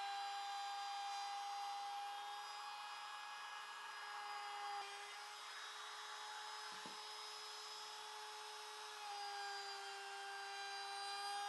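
Trim router running at speed with a steady high whine and the hiss of a round-over bit cutting the edge of a hardwood blank. The pitch shifts slightly about five seconds in and returns about nine seconds in, and a single light knock sounds in between.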